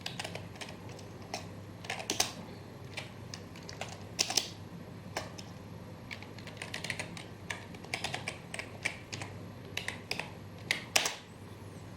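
Typing on a computer keyboard: irregular key clicks, some in quick runs, with a couple of harder strokes near the end.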